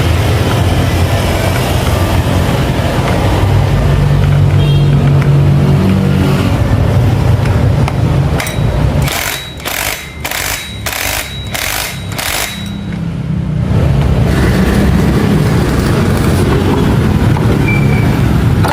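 Motorcycle engine running steadily. A little past halfway the running sound drops away under six short, evenly spaced bursts of hiss about half a second apart, then comes back.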